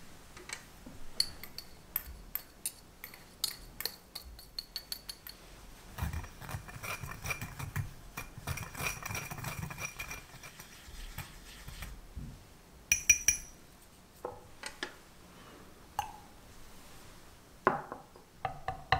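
Wire whisk mixing sugar and cornstarch in a ceramic bowl. Quick light clinks of the metal tines against the bowl give way to a few seconds of steady gritty stirring. A burst of sharp clinks follows about two-thirds of the way in, then a few scattered knocks.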